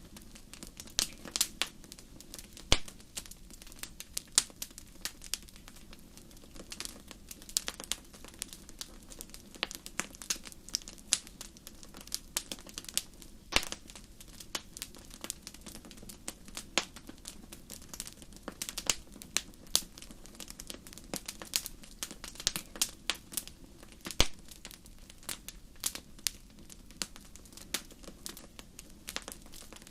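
Wood fire crackling: irregular sharp pops and snaps, a few much louder than the rest, over a soft steady low background.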